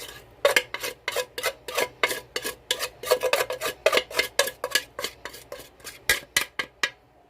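A utensil stirring pound cake batter in a mixing bowl, clinking and scraping against the bowl in quick, even strokes about three to four times a second, working the dry cake mix into the wet ingredients. The stirring stops shortly before the end.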